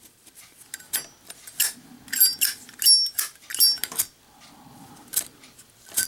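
Zippo windproof lighter with a steel insert being flicked open and snapped shut again and again: a series of sharp metallic clicks and clacks, some with a brief high ring. Near the end the flint wheel is struck, throwing sparks.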